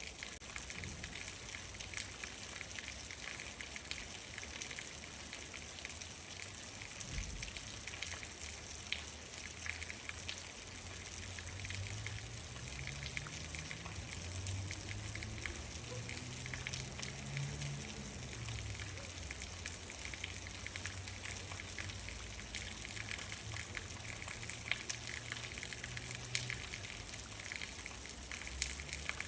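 Steady rain falling, with the short ticks of single drops striking close by. Through the middle a low hum rises and falls in pitch for several seconds.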